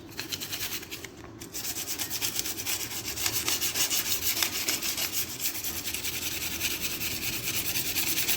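Sandpaper rubbed back and forth by hand over a Honda Bros 160's front brake disc in quick, even strokes, with a short break about a second in. It is scuffing off the glazed dirt that makes the brake squeal.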